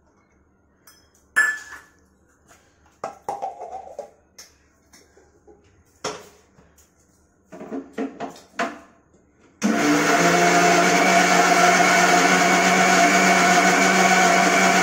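Electric mixer grinder switched on about two-thirds of the way in and running steadily at full speed, grinding garlic, green chillies and khosla into a paste. Before it starts there are scattered clinks and knocks of steel utensils.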